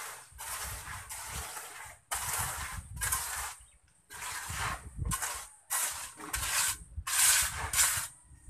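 Repeated scraping strokes of a hand tool over the rough cement-and-gravel floor of a concrete pen, roughly one or two strokes a second, with a short break about four seconds in.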